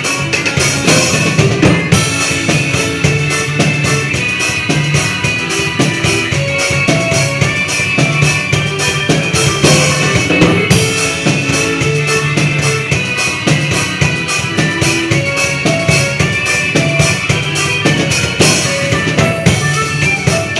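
A drum kit played along with a recorded forró band song: a busy, steady beat over the band's music, with no break.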